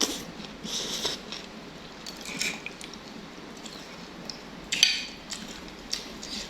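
Close-miked eating of beef noodle soup: a few short wet chewing and slurping noises with light clinks of utensils against the bowl, spaced out over several seconds.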